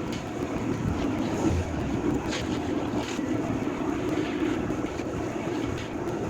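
Demolition machinery engine running steadily, with a few short sharp cracks near the middle.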